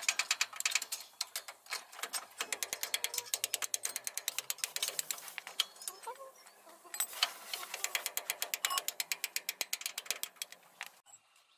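Ratchet wrench clicking rapidly and evenly, several clicks a second, in runs that stop and start a few times.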